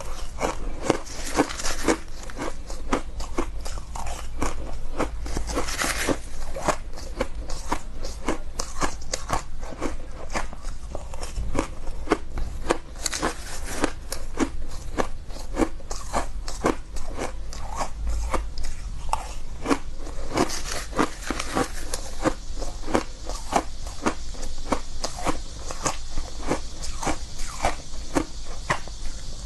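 Shaved ice crunching between the teeth as it is chewed: a quick, steady run of crisp crunches, several a second.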